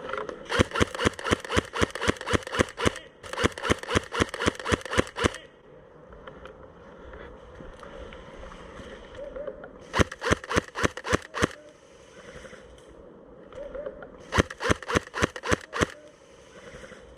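Airsoft gun firing in quick strings of shots, about six sharp cracks a second: two long strings in the first five seconds, then shorter ones around ten and fifteen seconds in.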